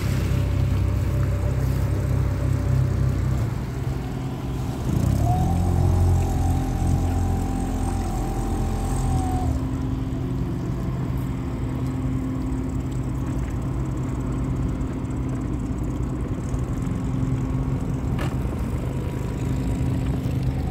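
Boat engines running steadily: a catamaran motoring on its one working engine, with an outboard-powered dinghy alongside. About five seconds in the engine note rises with a whine, holds for a few seconds and then eases back.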